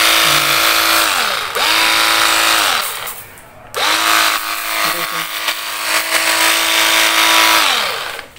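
Cordless 24-volt battery pressure washer spray gun spraying in bursts: its pump motor whines up to speed when the trigger is pulled and winds down when it is let go, under the hiss of the water jet on the scooter panels. It stops briefly about one and a half seconds in, runs again for just over a second, pauses near three seconds, then runs for about four seconds.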